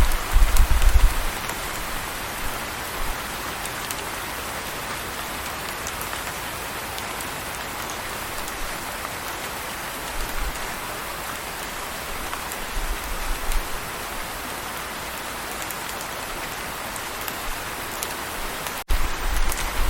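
Steady rainfall, an even hiss of rain on surfaces, with a few low rumbles near the start, about two-thirds through, and again near the end.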